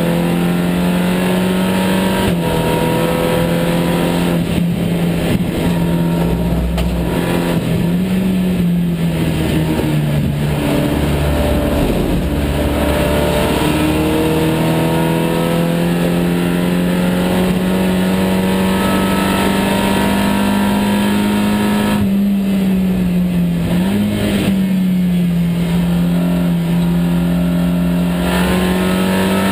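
SEAT Leon Supercopa race car's engine, heard from inside the cabin, running hard around the circuit. Its pitch climbs under acceleration and drops sharply at each gear change, several times over.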